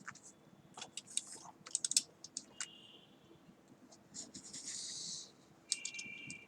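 Small plastic clicks, taps and scratches from handling the SIM card and its packaging, with a short rustle about four seconds in and a faint squeak near the end.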